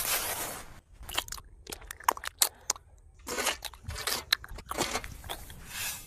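A miniature trowel spreading and scraping wet cement mortar on a board: a string of short wet, gritty scrapes and squishes with small clicks between them, the longest scrape at the very start.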